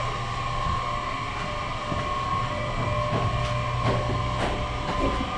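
A machine running steadily with a constant hum, with a few light knocks about halfway through and near the end.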